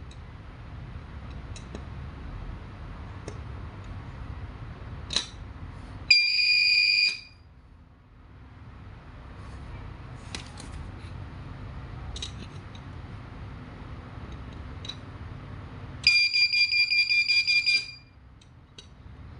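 Alarm circuit's buzzer sounding a high-pitched tone twice: about a second long a third of the way in, then a rapidly pulsing burst of about two seconds near the end. Faint clicks come in between.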